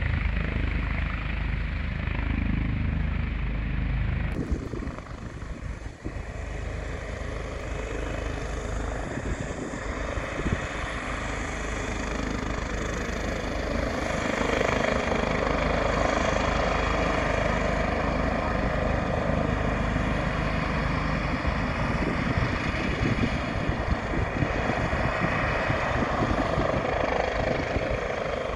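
Airbus H145 twin-turbine helicopter hovering just off the ground and then climbing away: a steady mix of turbine whine and rotor noise. The sound changes abruptly about four seconds in, then slowly grows louder and holds.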